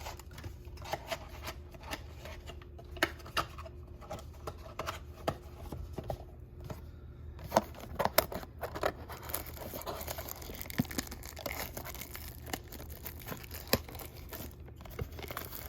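Crinkling and tearing of packaging: spent trading-card pack wrappers being cleared away and a cardboard blaster box being opened. Scattered taps and crinkles give way to denser rustling and tearing about halfway through.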